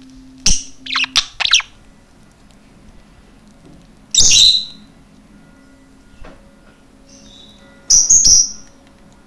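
Budgerigar chirping: a quick run of short, sharp chirps in the first second and a half, then a louder chirp about four seconds in and two more near the end.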